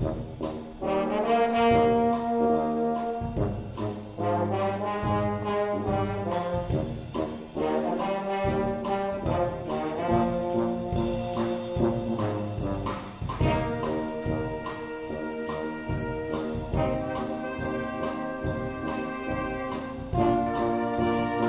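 Brass band playing live, trombone and trumpet holding chords over a steady drum beat.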